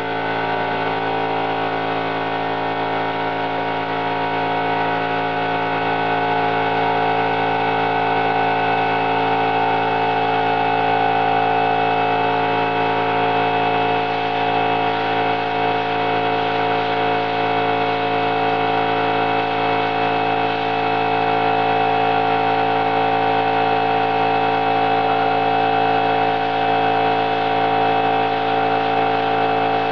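Air compressor motor running steadily for paint spraying, a constant hum with many steady tones.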